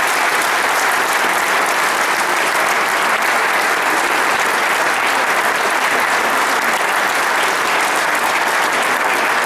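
Crowd applauding steadily, a dense, even clapping that holds without a break.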